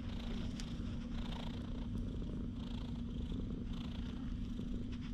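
Calico cat purring steadily as it is stroked on the head and neck: a close, continuous, contented purr.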